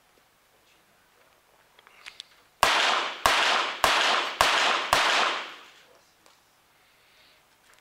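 .22 Short rapid-fire target pistol firing a five-shot series: five sharp shots in quick succession, a little over half a second apart, each echoing briefly in the indoor range hall.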